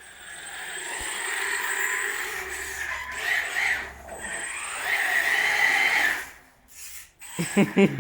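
3D-printed Tarmo4 RC car running, with a high squeal that swells twice, about three and five seconds in: the squeal of its brake when braking. It drops away near the end.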